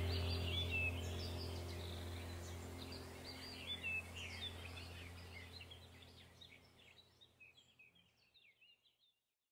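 Background ambient music: a sustained low drone with birdsong chirps over it, fading out to silence about eight seconds in.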